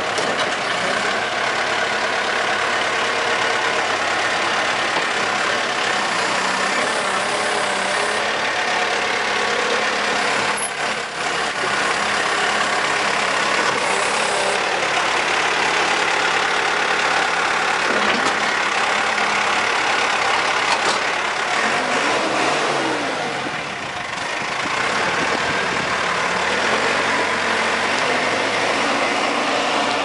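Diesel engine of a JCB 3CX backhoe loader running steadily while the machine is put through its operational test, with a brief rise and fall in engine speed about three-quarters of the way in.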